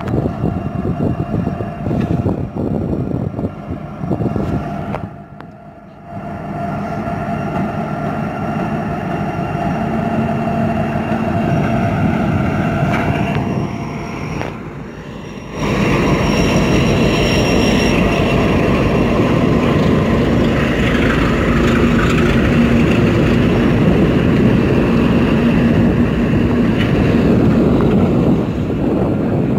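Union Pacific diesel freight locomotives running past close by, a dense steady rumble of engines and rolling wheels. About halfway through it becomes louder and stays loud as the lead units pass near.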